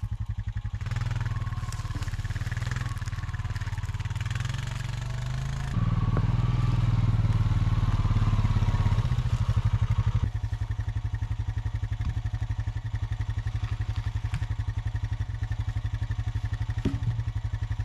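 A vehicle's engine running steadily at low revs with a fast, even pulse. It grows louder about six seconds in and drops back about four seconds later.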